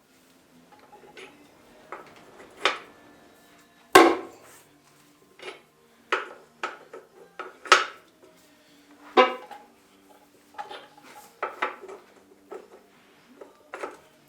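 Hand tools clanking and clinking on metal, about a dozen sharp irregular knocks, the loudest about four seconds in, as a wrench and sockets are worked on the tractor's wheel nuts.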